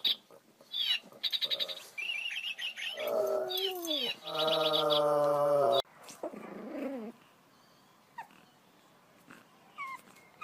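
A dog's rubber squeaky toy squeaking in quick runs, then a pug howling in drawn-out notes.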